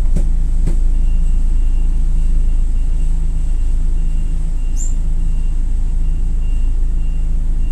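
Toyota Coaster BB70 minibus's LPG engine running with a steady low rumble, heard from inside the cabin, with two sharp clicks near the start and a faint on-and-off high tone.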